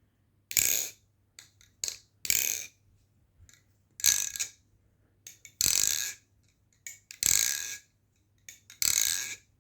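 Fully aluminum, pinless Squid Industries Swordfish balisong being flipped, with some play in it. Its handles clack against the blade and ring about every second and a half, six strong metallic hits in all, with lighter clicks and rattles between.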